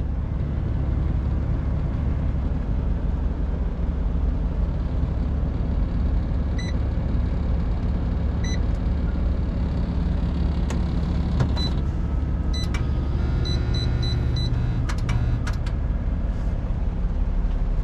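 Semi truck's diesel engine idling steadily, heard inside the sleeper cab. Short electronic beeps sound twice near the middle, then a quick run of beeps and switch clicks as buttons on the control panel are pressed.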